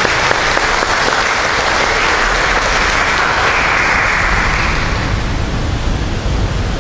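A congregation applauding, the clapping dense at first and dying away near the end.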